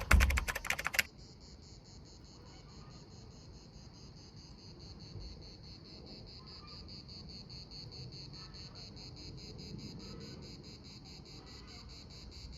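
Crickets chirping in a fast, even pulse over faint low background noise, after about a second of loud rustling noise at the start.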